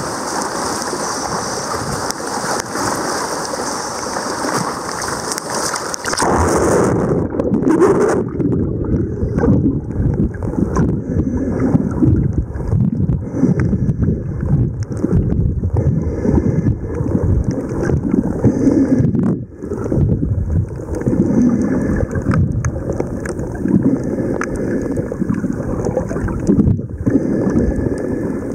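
Sea wind and surf on the microphone. About seven seconds in, the sound turns muffled, with uneven low sloshing and bubbling of water around a snorkeler's camera under the surface.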